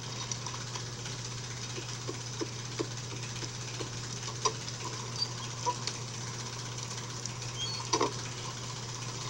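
Steady heavy rain over a constant low hum, a film soundtrack picked up off a television's speakers. About eight seconds in come a few sharp knocks.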